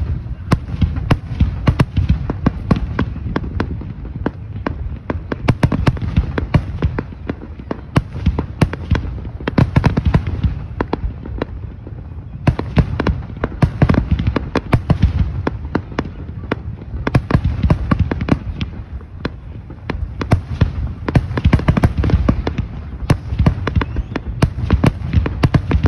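Aerial fireworks shells bursting in quick succession: a dense run of sharp bangs and crackling, several reports a second, over a continuous low rumble.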